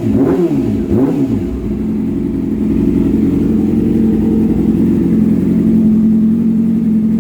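Yamaha YZF-R6 inline-four sport-bike engine on an aftermarket exhaust, blipped twice, each rev rising and falling back quickly, then settling into a steady idle from about a second and a half in.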